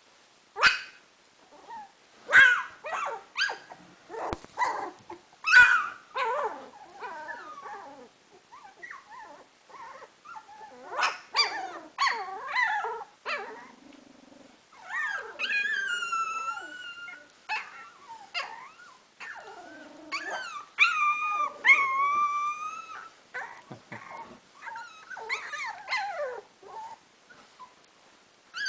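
Three-week-old standard schnauzer puppies whining and yelping, with many short high-pitched yips and, past the middle, a few longer drawn-out whines.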